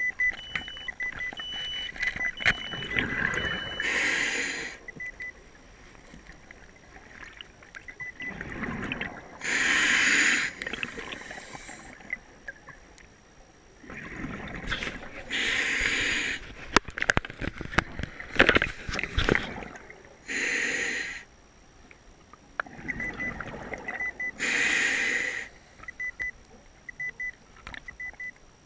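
Scuba diver breathing through a regulator underwater: a rush of exhaled bubbles about every five seconds, with quieter gaps between. A repeated electronic beep runs underneath, and a cluster of sharp clicks and knocks comes about two thirds of the way through.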